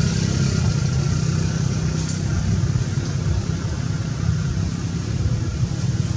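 Steady low engine rumble of a motor vehicle running.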